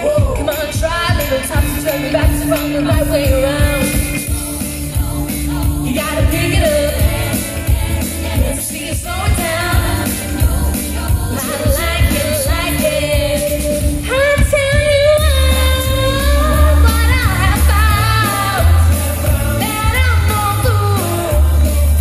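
A woman singing a song live into a handheld microphone over backing music, amplified through a stage PA. The bass in the accompaniment gets heavier about two-thirds of the way through.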